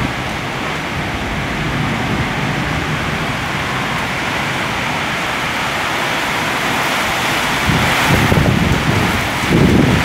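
Nor'wester (kalbaishakhi) storm: wind and rain hissing steadily, with gusts buffeting the microphone at the start and again near the end.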